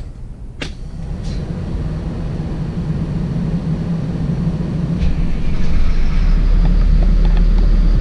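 Diesel pusher engine of a late-1990s Beaver motorhome being started and settling into a low idle. There is a click less than a second in, then a low rumble that builds and grows clearly louder about five seconds in.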